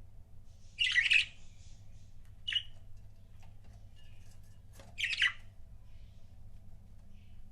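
Budgerigars calling: a loud call about a second in, a shorter one around two and a half seconds, and another around five seconds, with soft chirps in between.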